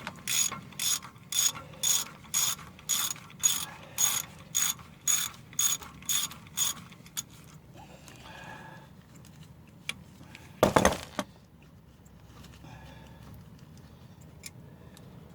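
Ratchet wrench clicking in steady back-and-forth strokes, about two a second, working a 12 mm brake caliper bolt; it stops about seven seconds in. A brief loud clatter follows a few seconds later.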